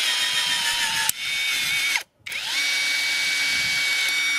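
Brushless motor of a ONEVAN cordless blind-rivet gun running in two whining runs. The first stops about two seconds in; after a short break the second spins up with a rising pitch and holds steady.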